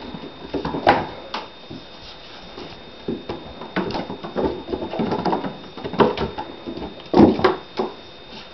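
A kitten's paws and claws scrabbling and thudding on a hardwood floor as it pounces on and is dragged along with a toy: irregular scuffs and knocks, the loudest about a second in and again near the end.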